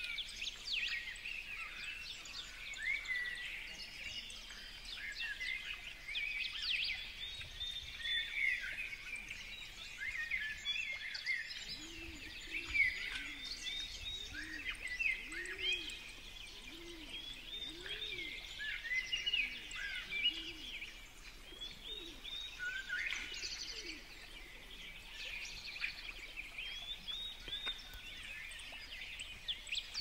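A flock of small seed-eating songbirds chirping busily at a feeder, with many short overlapping chirps and trills. For about ten seconds in the middle, a pigeon's low cooing runs underneath, about one coo a second.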